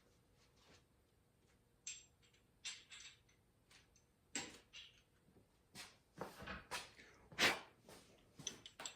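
Irregular light metal clicks and clinks from handling engine valvetrain parts and tools during pushrod and rocker installation, about a dozen short knocks, the loudest about three quarters of the way through.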